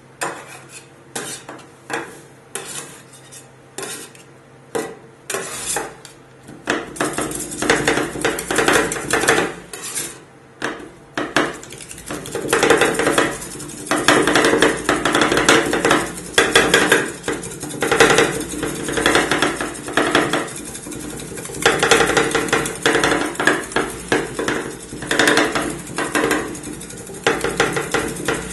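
Two metal spatula scrapers chopping and scraping an ice cream base with chocolate and Oreo pieces on a frozen steel ice-roll pan. Separate clacks come about every half second at first. A quarter of the way in they turn into rapid, continuous chopping and scraping. A steady low hum runs underneath.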